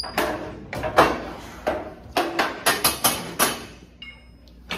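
Man panting hard in a run of quick, noisy breaths, coming fastest in the middle, as he recovers from straining in an isometric squat hold against an immovable bar. A short high squeak about four seconds in.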